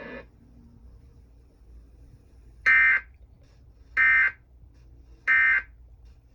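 Emergency Alert System end-of-message signal: three short, identical digital data bursts, about 1.3 seconds apart, marking the end of the broadcast warning.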